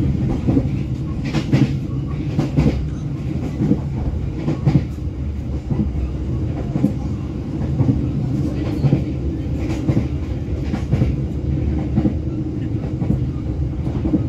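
Passenger train running at speed, heard from inside the carriage: a steady low rumble of the wheels on the rails, with irregular clacks over the rail joints.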